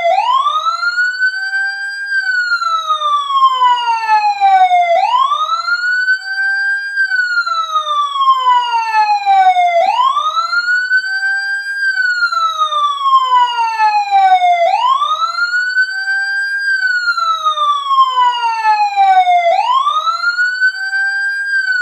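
Wailing siren tone played as a ringtone: the pitch sweeps quickly up, then slides slowly back down, repeating about every five seconds.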